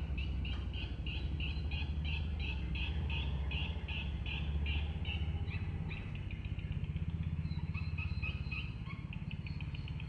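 Swiftlet twittering: a run of short, high chirps about three a second that becomes quicker and more irregular after about six seconds, over a steady low rumble.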